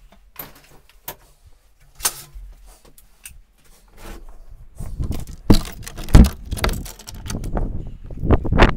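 Handling noise on a moving handheld camera: scattered clicks and rattles, then from about five seconds in a run of heavy low thumps and rumble.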